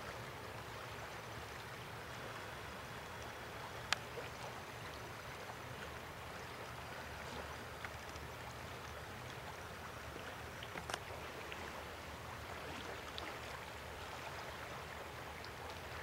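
Steady rushing of a river, with two brief sharp clicks, about four and eleven seconds in.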